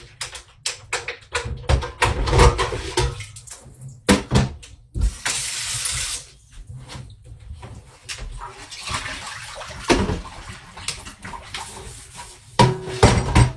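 Kitchen tap running briefly about five seconds in, amid repeated knocks and clatter of dishes and utensils.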